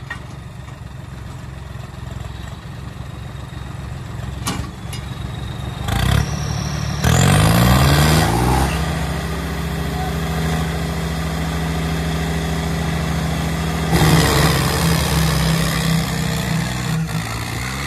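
Two diesel tractors, a John Deere 5050D and a Swaraj 963, chained together and pulling against each other at full load in a tug-of-war. The engines rev up sharply about seven seconds in and hold high revs, surge again near the end, then drop away.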